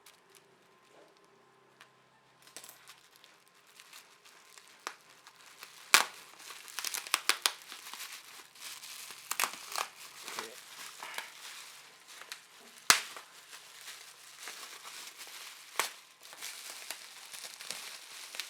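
Graphics-card packaging being unwrapped and handled by hand: crinkling and crackling of wrapping material, with a few sharp snaps. It starts about two and a half seconds in, after near quiet.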